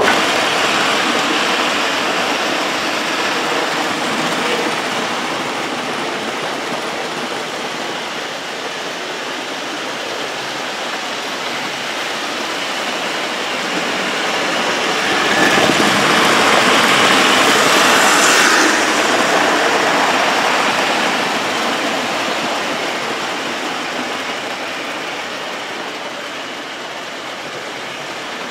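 OO gauge model trains running on the layout's track: a steady whir and rumble of motors and wheels that swells louder about halfway through as a train passes close, then slowly fades.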